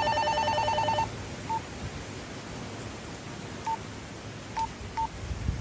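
Handheld two-way radio (walkie-talkie) sounding its call alert: a rapid warbling two-tone trill that stops about a second in. Four short single beeps follow, over a faint hiss.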